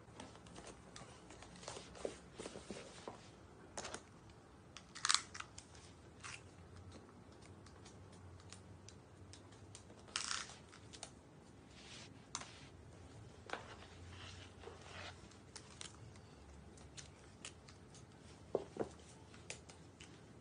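Faint, scattered clicks, taps and rustles over a quiet room hiss. The sharpest comes about five seconds in, another about ten seconds in, and two quick ones come close together near the end.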